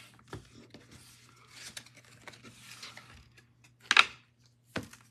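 Trading cards and wrapped packs being handled on a table: soft clicks and light rustles, with one short, loud rustle about four seconds in as a hand takes up the next pack.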